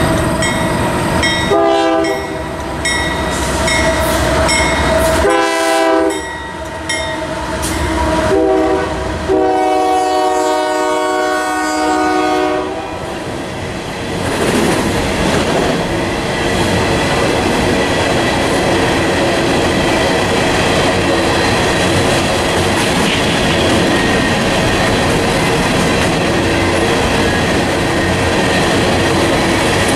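Union Pacific freight train's diesel locomotive horn sounding several blasts, the last one long, ending about twelve seconds in. After that, the coal cars roll past with a steady clickety-clack of wheels over the rail joints.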